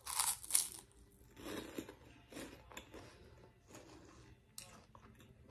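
A bite into a crunchy cheese puff, the two loudest crunches in the first half-second, followed by chewing with softer, irregular crunches.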